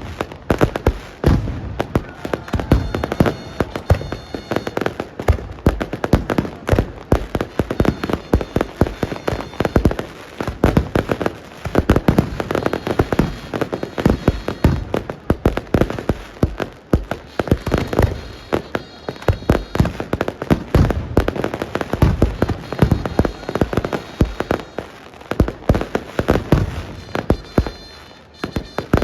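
Fireworks and firecrackers going off in a rapid, continuous string of bangs and crackles, several a second, some louder blasts standing out.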